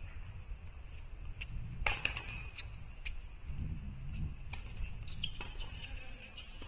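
Outdoor court ambience between tennis points: a steady low rumble with a scatter of short sharp taps, the loudest about two seconds in.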